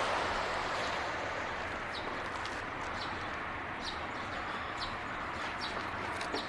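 Outdoor ambience: a steady background hiss with short, high bird chirps repeating at irregular intervals, more often from about two seconds in.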